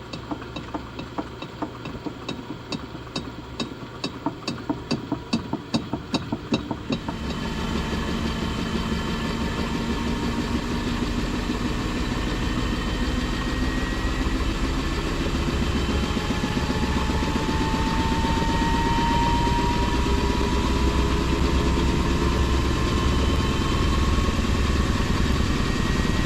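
Panasonic drum-type washing machine spinning up: a rhythmic knocking quickens and grows louder for about the first seven seconds, then gives way to a steady mechanical rumble with a slowly rising motor whine as the drum gathers speed.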